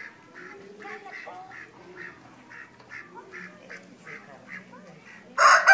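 Soft, evenly spaced short calls, about two or three a second. Near the end a rooster breaks in with a loud crow.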